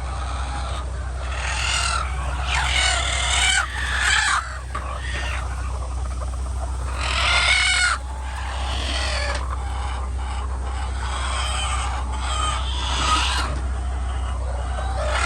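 Chickens clucking and squawking in repeated calls, over a steady low hum.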